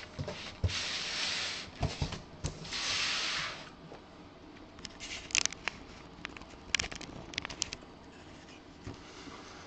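Large cardboard box being handled and slid on a desk: two drawn-out scraping rubs in the first few seconds, then a scatter of light taps and clicks.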